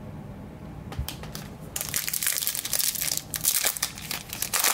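A Topps Chrome baseball card pack's foil wrapper being torn open by hand and crinkling. A few faint rustles come about a second in, then dense crinkling from about two seconds in.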